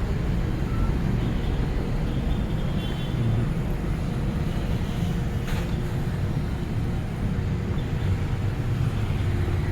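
Road traffic running past on a busy street, a steady rumble, with a brief sharp click about five and a half seconds in.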